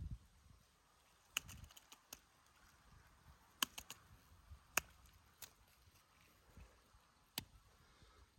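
Scattered sharp clicks and taps of clear plastic cups being handled and set into a bucket, about six over several seconds, against a quiet background.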